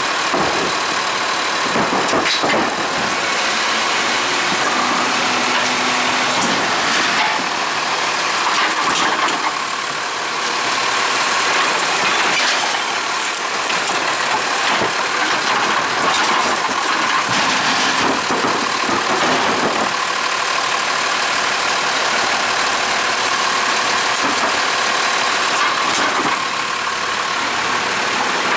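Autocar ACX garbage truck's engine running steadily while its Heil Durapack Python automated side-loader arm lifts and tips a 64- or 96-gallon recycling cart into the hopper. Several knocks and clatters sound from the arm and cart as it dumps.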